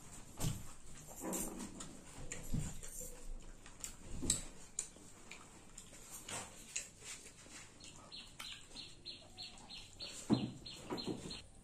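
Eating by hand: fingers mixing rice and pork curry on a ceramic plate, with scattered clicks and soft knocks. Then close chewing of a mouthful, a run of quick wet mouth smacks at about four a second near the end.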